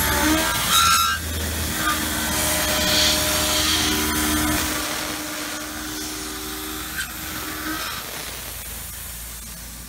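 Tormach PCNC 770 CNC mill cutting steel with an end mill at high speed (4500 RPM, 120 inches a minute): a steady cutting hiss with a few steady tones from the spindle and cut. The sound fades over the second half as the toolpath finishes.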